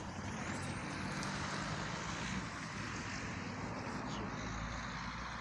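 A motor vehicle's engine idling steadily, being left running to warm up.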